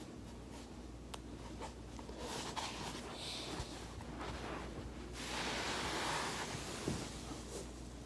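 Faint rustling and shuffling of clothing and a foam roller on carpet as a person moves the roller and settles their body onto it, with a couple of light clicks a second or so in and a steadier rustle in the last few seconds.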